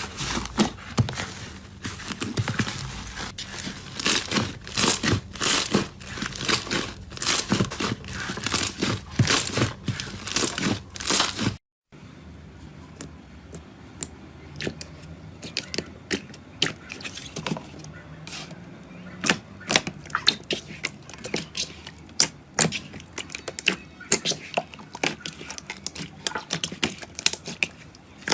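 Slime worked by hand, giving a dense run of sticky clicks and crackling pops. It breaks off sharply about twelve seconds in and resumes with sparser, quieter pops.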